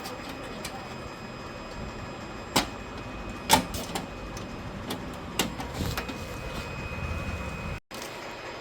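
PC parts being handled and fitted during assembly: a few sharp clicks and knocks of hard plastic and metal, the loudest about three and a half seconds in.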